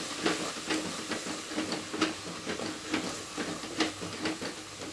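A spatula stirring and scraping a sizzling onion-tomato masala in a clay pot, about three quick scrapes a second over a steady hiss of frying, as the spice powder is sautéed into the base.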